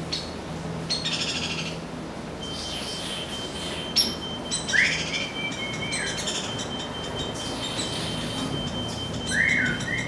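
Juvenile hairy woodpecker begging with sharp, repeated high call notes while an adult male arrives and feeds it. A person whistles to the birds twice, with a steady high electronic beep in the background.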